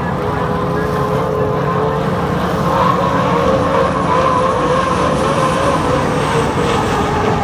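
Turbine engines of a pack of H1 Unlimited hydroplanes running at race speed, a steady whine that swells a little about three seconds in.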